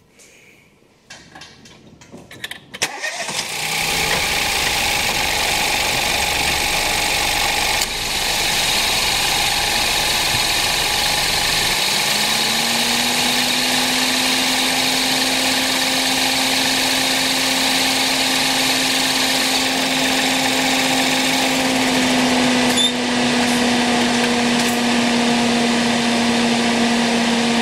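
A 2013 Ford Fiesta's engine bay running with the AC switched on: a loud steady machine noise starts about three seconds in. About twelve seconds in, a hum rises in pitch and then holds steady as the AC compressor clutch and the electric cooling fan run. There is a single click near the end.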